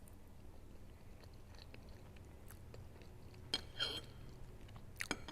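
Soft, close-up chewing of food with quiet wet mouth sounds and small clicks, with a louder smack about three and a half seconds in.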